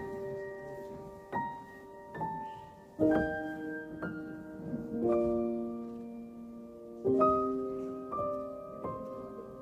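Background piano music: slow, gentle notes and chords struck about once a second, each left to ring and fade.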